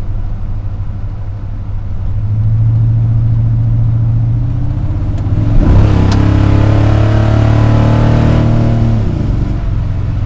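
Mazda RX-7's 13B two-rotor rotary engine, heard from inside the cabin. It is driving steadily, then about five seconds in it revs up hard under acceleration, its pitch climbing for a few seconds before dropping back near the end.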